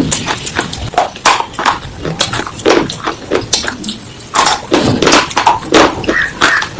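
Close-miked crunching of a slate pencil being bitten and chewed: many sharp, irregular crunches and crackles, with a short lull a little past halfway.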